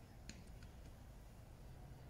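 Near silence: a faint steady background hum, with three or four faint small clicks in the first part.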